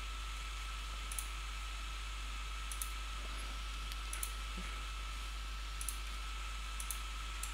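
Computer mouse clicking about five times, a second or so apart, several of them quick double snaps, over a steady background hiss with a faint constant whine.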